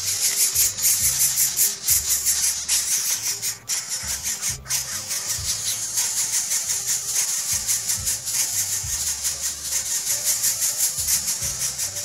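Background music with a fast shaker rhythm over a bass line.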